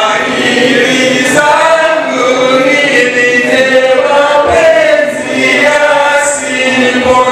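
A man singing into a hand-held microphone through a PA, long held notes sliding from one pitch to the next, with other voices possibly chanting along.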